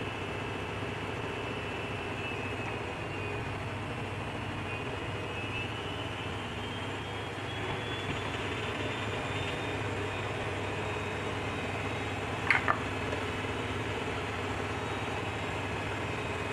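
Steady machine hum with hiss and a faint high whine, constant throughout. About twelve seconds in come two quick sharp clicks.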